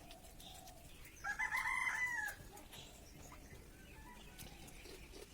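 A rooster crowing once, a single call of a little over a second that starts about a second in and falls in pitch at the end.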